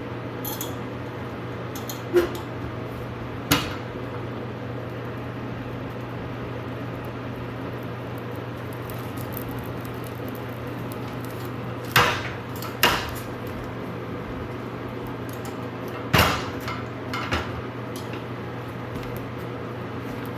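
Steady low hum with a handful of sharp knocks and clatters of hard objects, two about two to three and a half seconds in and four in the second half. No smoke-alarm beep or voice sounds.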